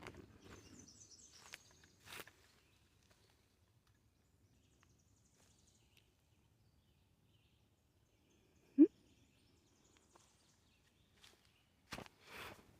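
Quiet woodland: a small bird gives a short, high, falling trill in the first second or so, with faint high chirps after it. A few scattered clicks and a brief rustle come near the end. A little past the middle there is one very short, sharp rising squeak, the loudest sound here.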